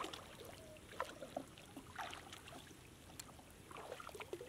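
Shallow water splashing and dripping as a wet gill net is lifted out of flooded rice-field water and handled over a plastic basin: faint, irregular small splashes and drips every second or so.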